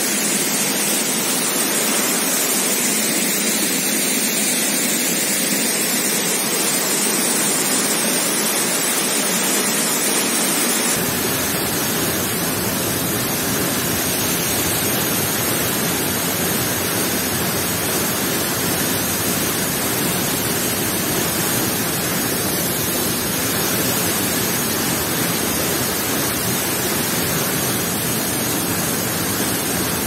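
Waterfall plunging into a rock pool: a loud, steady rush of falling water. About eleven seconds in, the sound turns fuller with a deeper rumble underneath.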